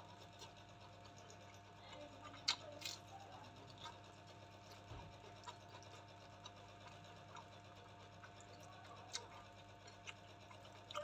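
Faint eating sounds: quiet chewing and mouth noises with a few short sharp clicks, the loudest about two and a half seconds in, over a steady low hum.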